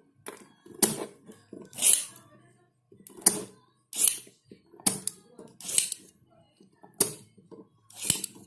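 Sharp clicks and short scraping strokes, roughly one a second, from hand tools being worked on a CRT television's chassis.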